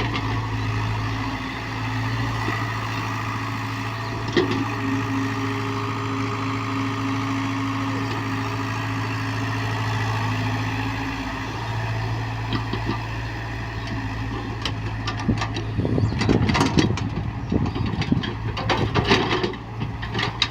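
Hyundai excavator's diesel engine running steadily, with a higher steady tone joining it for several seconds in the middle. In the last few seconds there is a run of loud clanks and knocks.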